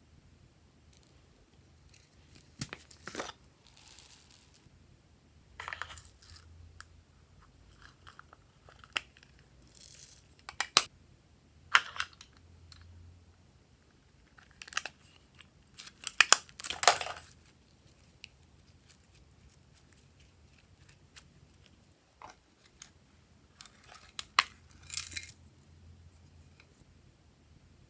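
Glossy slime being worked by hand: scattered sticky clicks, pops and crackly squelches at irregular intervals, with a louder cluster of crackles about 16 seconds in.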